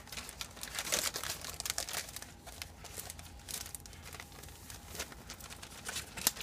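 A plastic zip-top bag crinkling and rustling as seasoned garbanzo bean flour is poured into it from a plastic bowl, in uneven spurts, with a sharp tap near the end.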